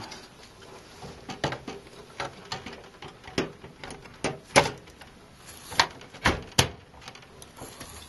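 Scattered light clicks and knocks of an ASUS STRIX GTX 980 graphics card being lowered into the case and pressed into its PCIe slot, the card's metal bracket and edge tapping against the case and slot. A pair of sharper clicks comes a little past halfway as the card goes home, with a firm, positive feel.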